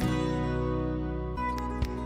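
Background instrumental music: a held chord that changes to new notes about one and a half seconds in, with a few light beats after the change.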